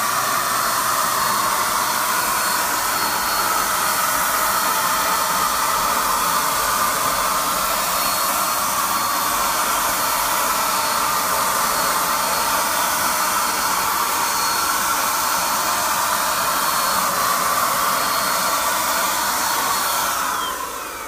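Handheld electric paint sprayer running steadily, its motor blowing air and paint in an even whooshing hiss with a faint high whine, then shutting off near the end.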